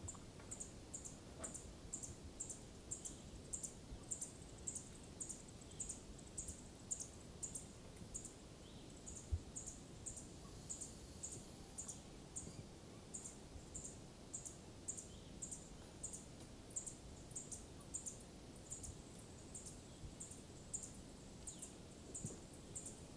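A small animal's high chirp, repeated steadily about twice a second, with a soft thud about nine seconds in.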